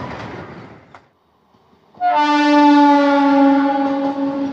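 Running noise of a passing Indian Railways EMU local train fades out. About two seconds in, a long, loud horn blast starts from an Eastern Railway EMU local passing close by, sinking slightly in pitch as it goes.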